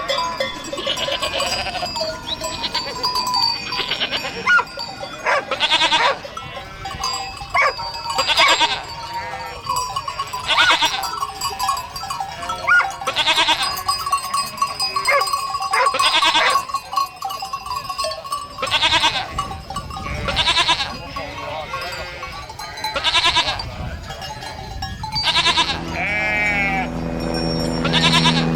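Livestock bells clanking and ringing, with bleating calls every two to three seconds.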